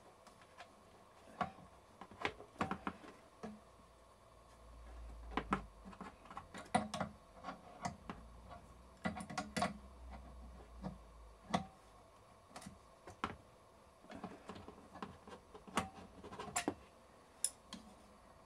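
Irregular clicks and taps of a spanner working on metal fittings as they are tightened, with a low rumble from about five to eleven seconds in.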